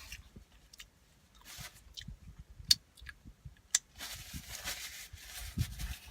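Close-up chewing of a mouthful of cheeseburger, with wet mouth clicks and smacks; two sharp clicks stand out in the middle.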